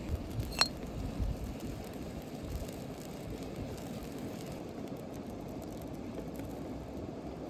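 Steady low rushing of flowing river water, with a single sharp clink about half a second in and a few soft low thumps in the first second or so.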